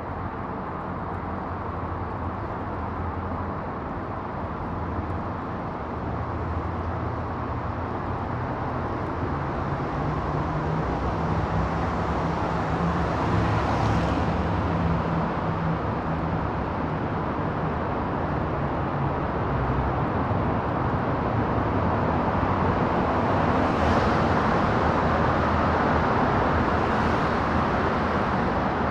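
Steady ambient rumble and hiss of motor traffic, growing slowly louder, with a few brief swishes of passing vehicles.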